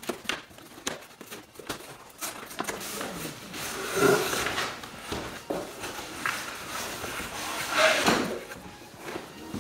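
Cardboard shipping carton being opened and handled: flaps folded back, cardboard rustling and scraping, with louder scrapes about four and eight seconds in as the boxed Dutch oven set is slid against the carton.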